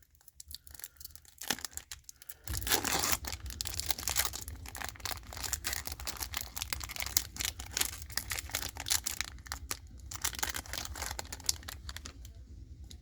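Trading card pack wrapper being torn open and crinkled in the hands. The crackling starts about two and a half seconds in, runs densely and eases off near the end.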